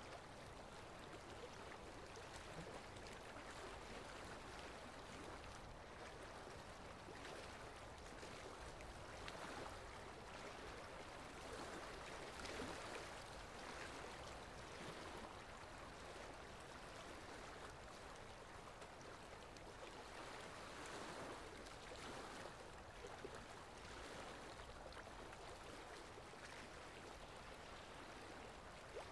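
Faint, steady wash of sea water, small waves lapping and swelling gently.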